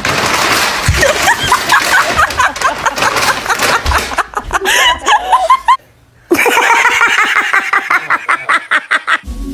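People laughing: a rapid string of short giggles and chuckles. It breaks off for a moment about six seconds in, then the laughing starts again.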